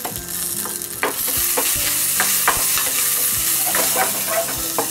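Tempering spices (mustard seeds, urad dal, dried red chillies, cumin, curry leaves and asafoetida) sizzling in hot sesame oil in a small kadai while a spatula stirs them, with scattered sharp clicks. The sizzle grows louder about a second in.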